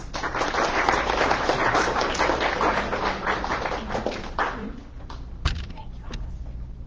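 Audience applauding for about four seconds, then fading out. It is followed by a few sharp knocks from the handheld microphone being passed between two people.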